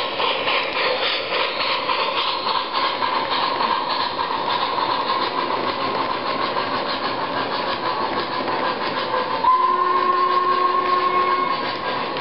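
Digital sound system of an MTH RailKing O-gauge N&W Y6b model steam locomotive playing a rapid steady chuff as the coal-hopper train rolls along the track. About nine and a half seconds in, the steam whistle sounds for about two seconds.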